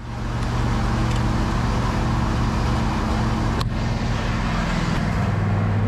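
John Deere riding mower engine running steadily at idle, with a single sharp click about three and a half seconds in.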